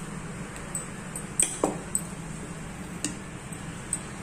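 A spoon clinking against bowls several times while dhokla batter is scooped and divided between them, a few light sharp clinks with a faint ring.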